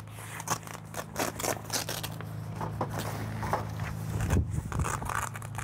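Long zipper in a pop-up camper's canvas wall being pulled open by hand in short, raspy tugs, over a steady low hum.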